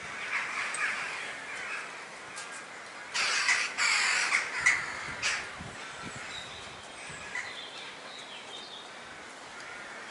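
A flock of crows calling and cawing overhead, the calls loudest and most crowded from about three to five seconds in, then thinning out.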